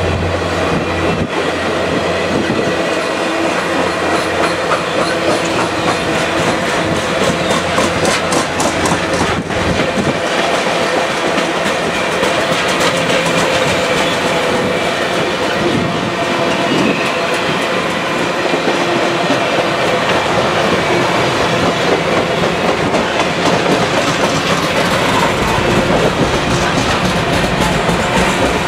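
Ringling Bros. and Barnum & Bailey circus train's passenger cars rolling past close by: a steady, loud rush of wheels on rail, with runs of rhythmic clicking as the wheels cross rail joints.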